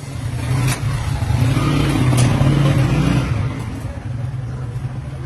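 An engine running with a steady low hum, swelling louder about midway. Two sharp clicks cut through it.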